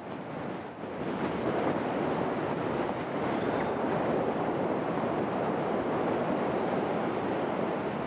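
Strong hill wind buffeting the microphone: a steady rushing noise that dips briefly and builds back up about a second in.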